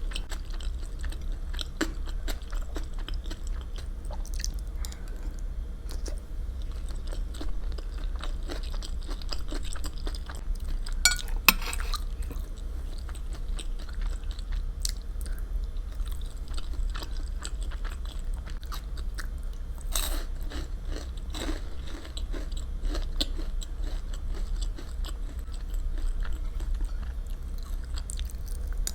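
Close-miked chewing and eating sounds: many small wet mouth clicks, with a sharper click about eleven seconds in. A steady low hum runs underneath.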